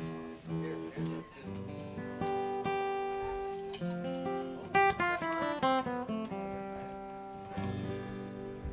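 Acoustic guitar picked unaccompanied: single ringing notes and short runs, each note sustaining before the next.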